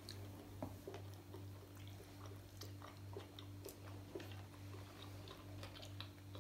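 Two people chewing sushi rolls close to the microphone: faint, soft, irregular mouth clicks and squelches over a steady low hum.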